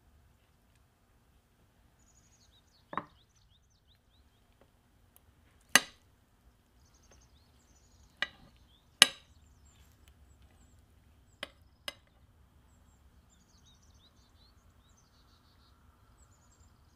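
Cutlery clinking and knocking against dishes in six separate strikes, the loudest two near the middle, with faint bird chirps in the background.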